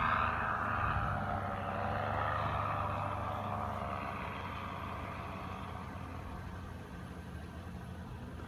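Droning of a small propeller engine in the air, fading slowly as it moves away, over the low steady hum of an idling car engine.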